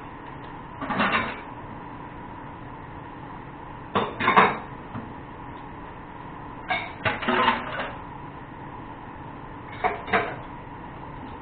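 Cooking pots and utensils knocking and clattering in four short bursts a few seconds apart, over a steady background hiss.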